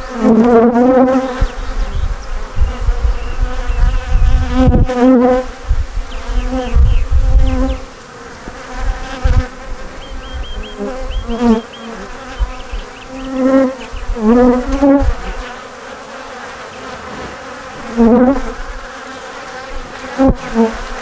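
Honeybees buzzing loudly around an opened hive, single bees swooping close past with a buzz that rises and falls in pitch. A few sharp knocks come through along the way.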